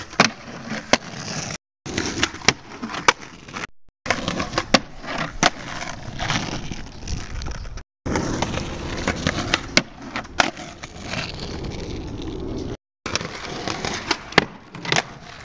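Skateboard on asphalt: wheels rolling, sharp clacks of tail pops and landings, and the board grinding and sliding along a wooden curb box. It comes in several short takes, each cut off by a brief moment of silence.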